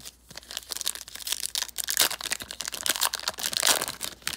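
Plastic trading card pack wrapper crinkling as it is torn open and handled, a dense continuous crackle.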